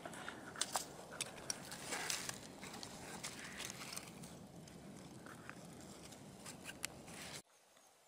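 Faint rustling with scattered light clicks, from handling soil and coins at a dig hole. It cuts off abruptly about seven seconds in, leaving near silence.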